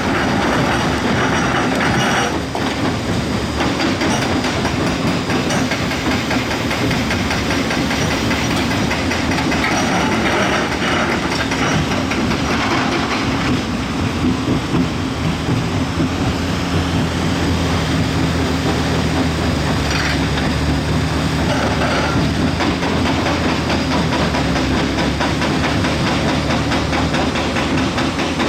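Heavy diesel earthmoving machine working: a steady engine drone under continuous mechanical clatter, with the engine's low hum growing plainer in the second half.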